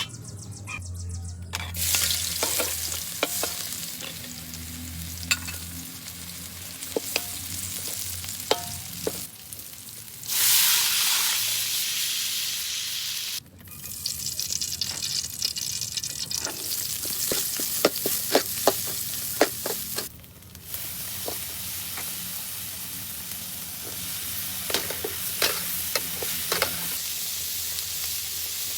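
Food sizzling as it fries in a pan, stirred with a utensil that scrapes and clicks against the pan again and again. The sizzle swells louder for about three seconds around ten seconds in, and drops out briefly twice.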